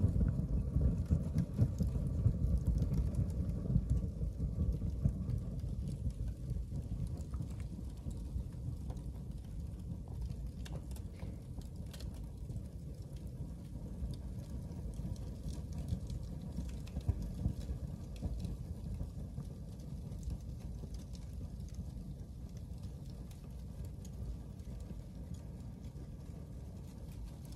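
Paper bags burning on a fireplace grate. The flames make a steady low rumble with scattered crackles and pops. The rumble is loudest in the first few seconds, then settles lower.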